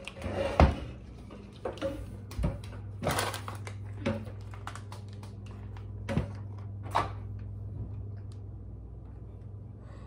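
Scattered knocks and clicks over a steady low hum, ending with an over-the-range microwave's door being pulled open with a clunk about seven seconds in.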